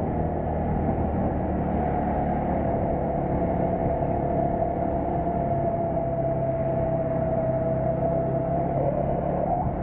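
Motorcycle engine running steadily while riding, heard from on the bike, with road and wind rush and a steady whine over the engine note.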